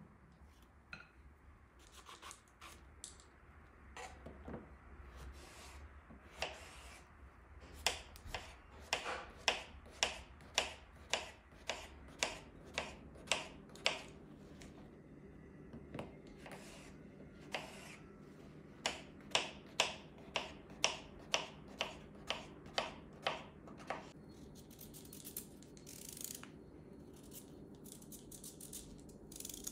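Kitchen knife cutting zucchini on a bamboo cutting board: two long runs of even chops, about two a second, each stroke ending in a knock on the wood, with a few scattered cuts before them. Near the end, quicker, finer cuts as the knife works through a carrot held in the hand.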